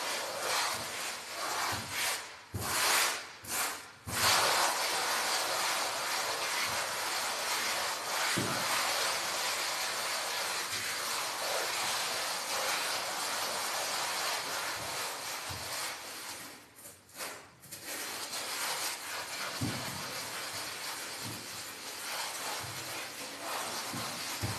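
Hand float rubbing over a wall coated in fine finishing mortar: a continuous scratchy hiss of the finishing strokes, breaking off briefly a few times early on and once about two-thirds of the way through.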